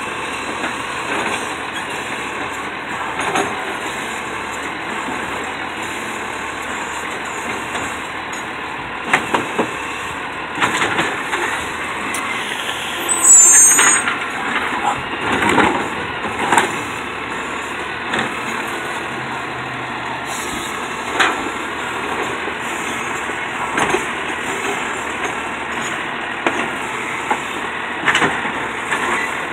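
Automated side-loader garbage truck running at the curb while its lift arm dumps a trash cart into the hopper and lowers it again. Bangs and clanks of the cart and arm come in a cluster through the middle, the loudest with a brief squeal, and there are a few single knocks later.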